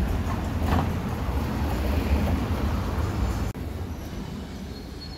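Outdoor street noise: a steady low rumble with hiss, which drops abruptly to a quieter background about three and a half seconds in.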